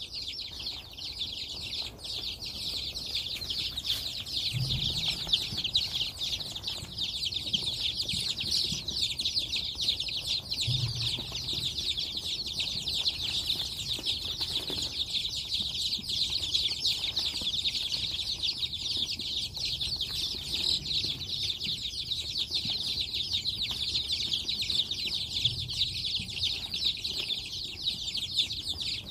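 A brood of chicks peeping continuously, many high chirps overlapping into one steady chatter as they scramble for black soldier fly larvae. A couple of soft low thumps come about five and eleven seconds in.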